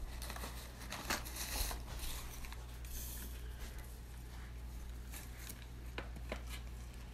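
Tissue paper and a paper gift bag rustling and crinkling in small, irregular bursts as a gift is unwrapped, over a faint steady low hum.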